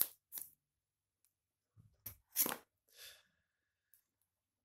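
Utility knife blade scratching and slicing through the plastic shrink-wrap on a smartphone box: a few short scrapes with quiet pauses between them.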